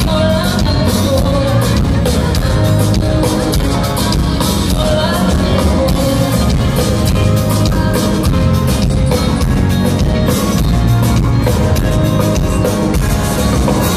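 A woman singing live into a microphone over loud amplified band music with a steady drum beat, heard from the audience through a concert PA.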